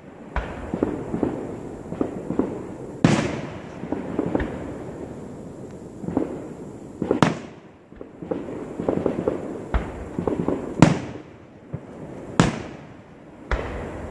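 Aerial fireworks shells bursting in a string of sharp, echoing bangs a second or so apart at irregular intervals, the loudest about three, seven and eleven seconds in. A rough crackling haze fills the gaps between bangs.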